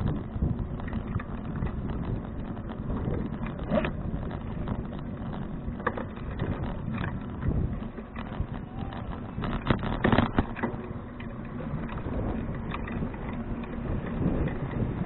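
A 2012 Fuji touring bicycle being ridden, heard through wind and road rumble on the action camera's microphone. Frequent sharp knocks and rattles come from the bike and camera mount jolting over bumps, the loudest cluster about ten seconds in.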